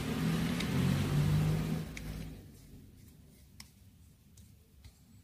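A low drone with a few steady low tones fades away about two and a half seconds in. After it, a few faint clicks and taps as the antenna is screwed back onto a Baofeng GT-3TP handheld radio.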